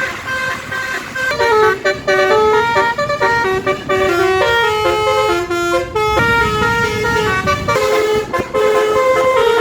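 A Basuri telolet musical air horn on a tour bus plays a fast melody. A held note gives way about a second in to quick notes stepping up and down, loud and without a break.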